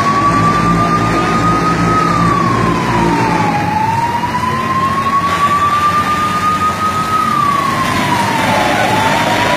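Fire engine siren in a slow wail: a single tone rises for about two seconds, then drops back, twice. Underneath is a steady background of noise and a low rumble.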